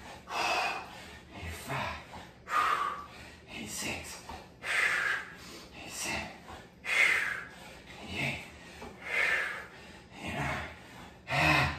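A man breathing hard from exertion during a set of reverse lunges: short, forceful breaths about once a second in a steady rhythm.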